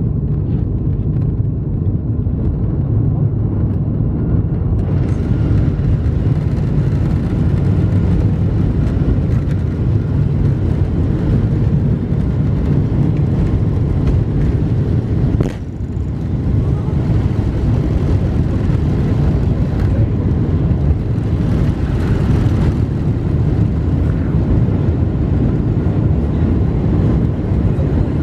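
Steady low rumble of a Boeing 747-436's Rolls-Royce RB211 engines, heard from inside the passenger cabin. About five seconds in, a hiss joins the rumble, and the sound dips briefly around the middle.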